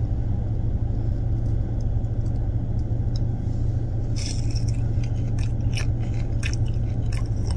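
A bite into a fried French toast stick about four seconds in, then chewing with small scattered clicks, over the steady low hum of the car idling.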